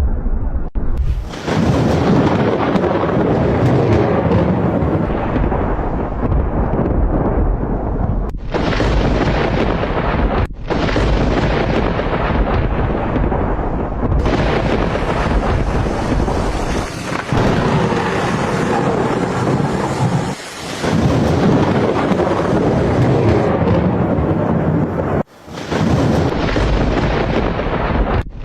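Thunderstorm: heavy rain and strong wind with thunder, loud and continuous. The sound cuts out abruptly for an instant several times, as between spliced clips.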